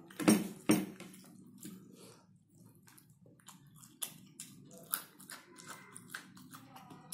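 Mouth sounds of a person chewing pork and rice: wet smacks and clicks, with two louder smacks less than a second in, then a run of smaller ones.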